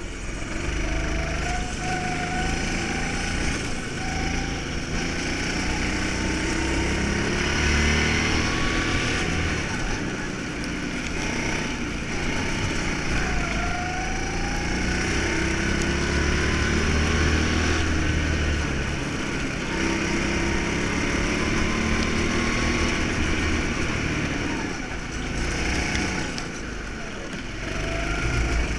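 Small go-kart engine running hard, its pitch climbing in several long rises and dropping back as the kart accelerates and brakes through the corners, with wind buffeting the onboard microphone.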